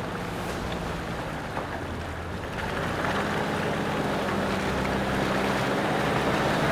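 A 4WD ute's engine running at low revs as it crawls down a muddy track, with tyres squelching and splashing through mud and puddles; it grows gradually louder as it comes closer.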